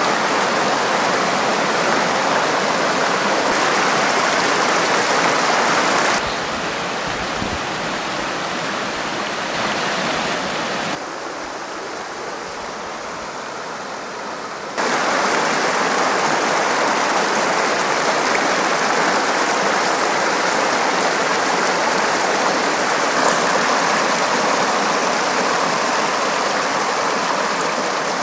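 Mountain creek rushing over rocks: a steady wash of water. It drops abruptly in level about six seconds in and again around eleven seconds, then comes back at full strength around fifteen seconds in.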